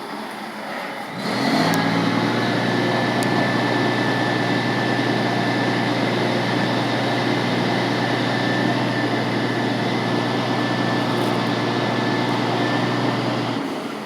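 Knuckleboom crane's engine and hydraulics running under load. The sound steps up about a second in, holds a steady hum with a faint high whine, and drops back near the end.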